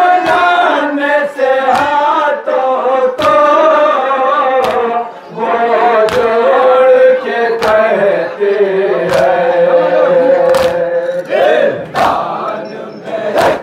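Men chanting a noha, a Shia lament, in unison, with a loud chest-beat (matam) from the crowd landing together about every second and a half.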